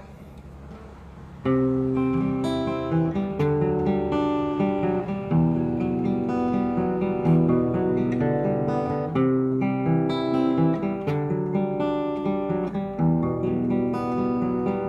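Acoustic guitar playing an intro of picked and strummed chords, coming in suddenly about a second and a half in after a faint hiss.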